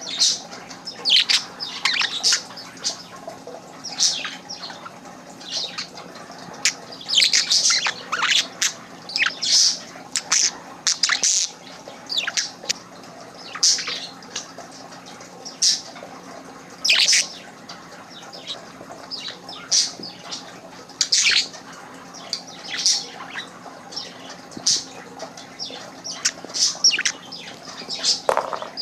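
Budgerigar chirping and chattering in many short, sharp high chirps at irregular intervals, over a faint steady hum.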